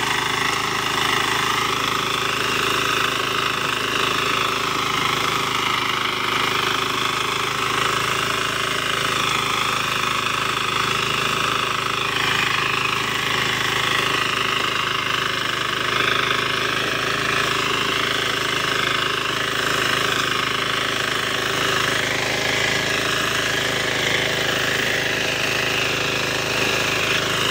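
Mini power tiller's engine running steadily under load, its rotary tines churning dry soil.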